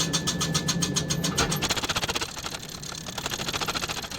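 Power hammer striking a hot forge-welded san mai billet in rapid, even blows, several a second, over a steady machine hum. After about a second and a half the blows turn lighter and quicker.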